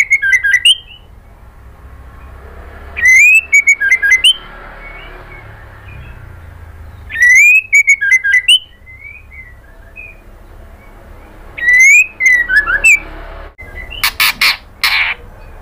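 White-rumped shama calling: four loud phrases about four seconds apart, each a rising whistle followed by a quick run of short clipped notes. A burst of a few harsh, scratchy notes comes near the end.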